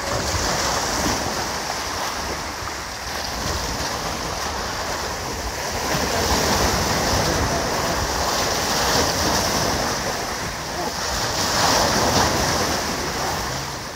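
Sea waves washing against a rocky shore, the surge swelling and easing every few seconds, with wind rumbling on the microphone.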